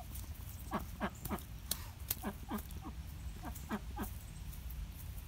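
Black Swedish duck hen quacking in a run of about a dozen short calls, each falling in pitch, two to three a second. A steady low rumble sits underneath.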